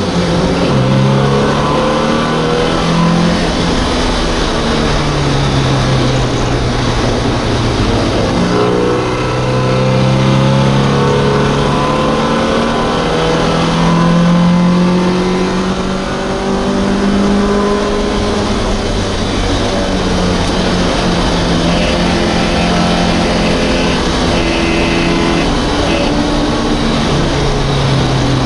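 FIA MGB race car's four-cylinder B-series engine at high revs, heard from inside the car. The note climbs through each gear, drops back at each change, and eases briefly a little past halfway.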